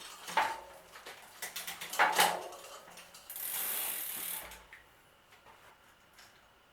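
Tools and bicycle parts being handled as a bike is stripped down: a run of sharp ratchet-like clicks and knocks, then a hiss lasting about a second a little after three seconds in.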